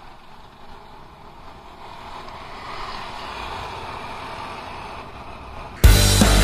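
Riding noise on a Honda Beat scooter: wind on the microphone with the engine and passing traffic beneath, swelling a little about two seconds in. Near the end, loud rock music cuts in suddenly and drowns it out.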